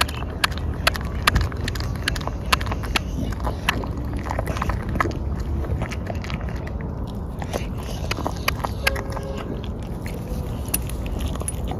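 A dog chewing and tearing at a whole raw black-skinned chicken: irregular crunches and sharp clicks of teeth on meat and bone, over a steady low rumble.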